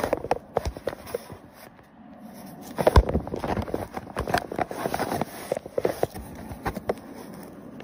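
Paper bag crinkling and rustling as a kitten moves around inside it, in irregular crackles and taps, with a low thump about three seconds in.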